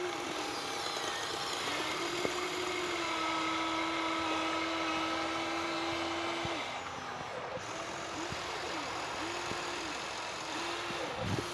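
Electric motor of a radio-controlled model truck or excavator whining steadily, its pitch dipping and coming back up several times as the throttle is eased off and applied again.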